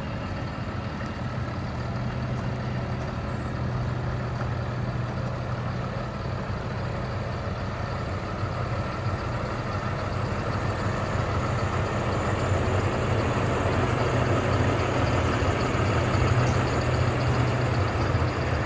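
Cummins ISB inline-six diesel of an International 4300 truck idling steadily, growing louder toward the end as it is approached from the front.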